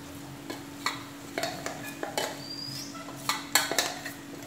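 A steel bowl knocking and scraping against a nonstick kadai as ground bread is tipped in, with a wooden spatula scraping and pushing the crumbs around the pan: a string of irregular short knocks and scrapes.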